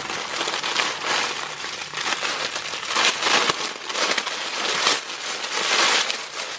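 Thin clear plastic bag crinkling and rustling without pause as hands handle it and draw a woven scarf out of it.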